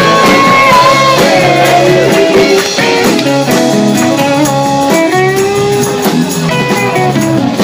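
Live rock band playing, with electric guitar and bass guitar. A woman sings a held, bending note into a handheld microphone at the start, then the vocal drops out while the band plays on.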